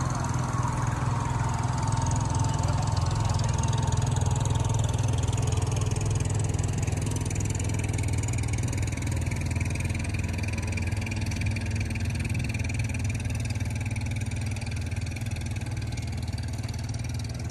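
A small boat engine running steadily at a low pitch.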